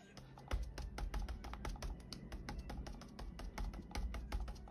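Rapid, repeated soft taps of a foam ink blending tool dabbing ink through a plastic stencil onto paper, about five taps a second, over quiet background music.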